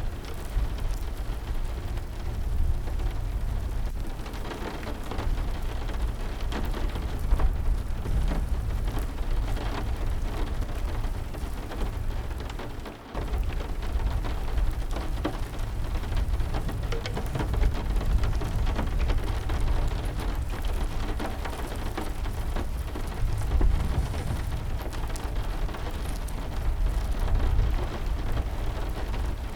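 Steady heavy rain with a deep rumble underneath and many small patters and crackles, dipping briefly about 13 seconds in.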